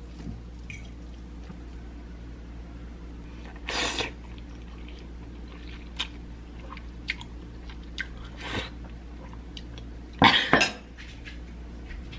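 A person eating instant ramen noodles with a fork from a ceramic bowl: a few short slurps and chewing, with faint clicks from the fork on the bowl. A louder burst comes about ten seconds in.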